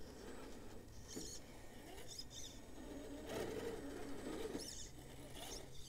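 Axial SCX10 III Gladiator RC rock crawler climbing a rock ledge: its electric motor and geared drivetrain whine faintly in short bursts, rising and falling as the throttle is worked, over a low steady hum.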